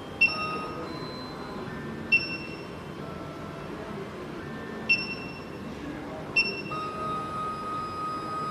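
SEC-E9 key cutting machine beeping: four short high electronic beeps at uneven spacing, then from about two-thirds of the way in a steady tone that holds on.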